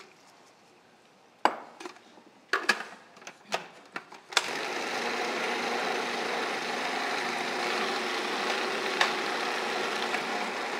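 A few short knocks, then about four seconds in a food processor starts and runs steadily, blending ricotta gnocchi dough of ricotta, flour, Parmesan, olive oil, herbs and egg.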